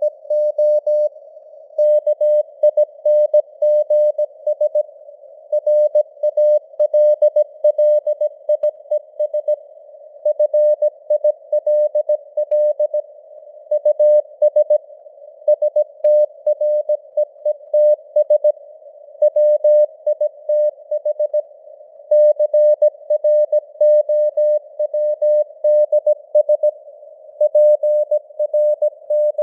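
Morse code at 17 words per minute: a single tone of about 600 Hz keyed on and off in dots and dashes, grouped into letters and words. It sits over a faint band of simulated radio hiss that stays audible in the gaps.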